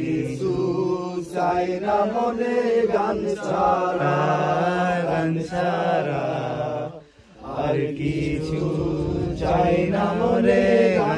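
A group of voices singing together around a campfire in a chant-like folk song, breaking off briefly about seven seconds in and then starting again.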